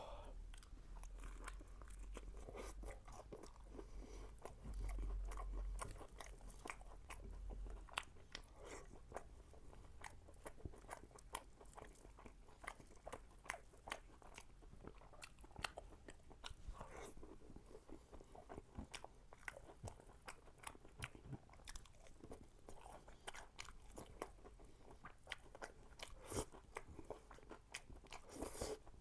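Crisp sauce-coated fried chicken being bitten and chewed close to the microphone, with many sharp crunches all through. A low hum runs under the first eight seconds or so.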